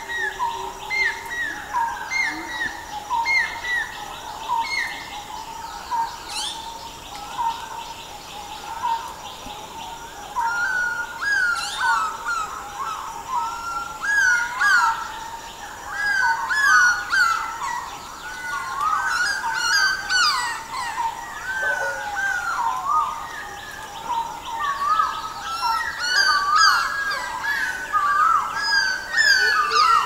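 Morning bird chorus. At first one bird repeats a short chirp about twice a second; from about ten seconds in, several more birds join with denser, overlapping song.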